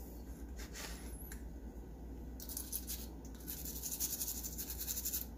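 A stiff scrub brush scrubbing small toy-car parts clean, in quick back-and-forth strokes that come fastest and loudest in the second half.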